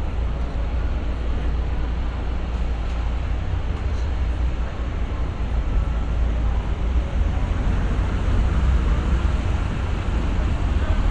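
City street ambience: a steady low traffic rumble with general street noise, growing a little louder near the end.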